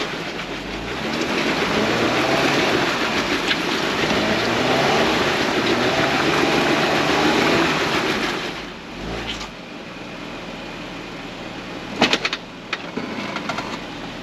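Jeep engine revving up and down under load as the rear tires work over tree roots, with rough noise from the tires and ground. About eight and a half seconds in the revs drop back to a quieter run, and a few sharp knocks follow near the end.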